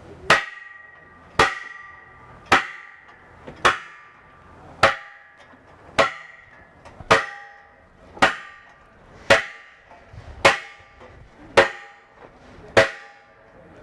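Red hydraulic bottle jack being pumped with a long steel bar handle while it lifts the side of a treehouse: a sharp metallic clank with a short ring on each stroke, a dozen strokes at a steady pace of about one a second.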